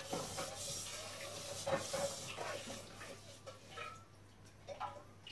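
A small plastic toy car is handled and set down on a tile floor: light rubbing and a few soft clicks of plastic on tile over the first three seconds, then it goes quiet.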